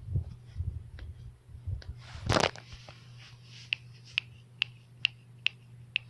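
Knuckles cracking over and over: sharp little pops, a few scattered at first, then a regular run of about two a second in the second half. A louder, longer rustling burst comes about two seconds in, over a steady low hum.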